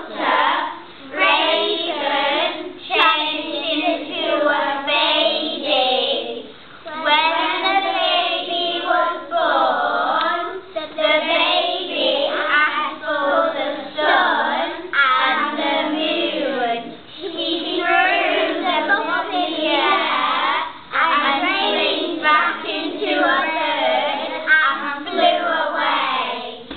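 A group of young children singing together in unison, in phrases separated by brief pauses for breath.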